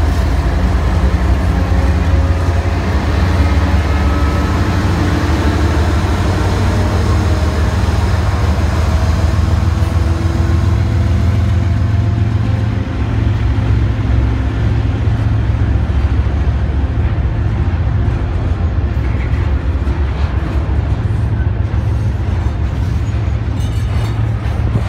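Union Pacific freight train passing close by: the diesel locomotives' engines run with a deep, steady rumble, their tones sliding down in pitch as they go past. The intermodal cars follow, rolling over the rails with a few sharp clicks near the end.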